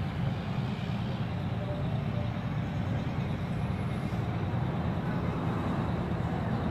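Engines of a fire truck and police pickup trucks idling, a steady low rumble.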